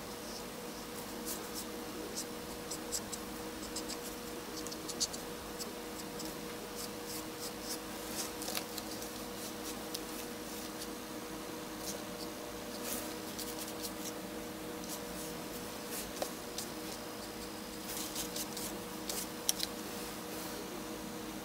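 Faber-Castell India ink marker tip scratching and rubbing across paper in short, irregular strokes, over a steady faint hum.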